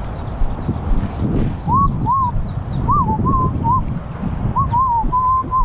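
Strong wind buffeting the microphone. From about two seconds in, a person whistles a short tune of clear notes.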